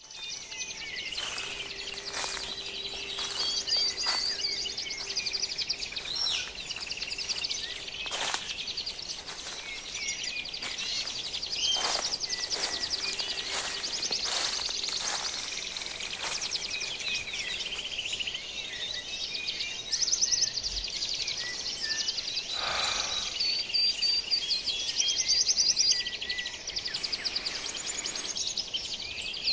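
Tropical forest ambience: many birds chirping and calling over a dense chorus of fast insect trills. A faint steady low tone sits under the first half.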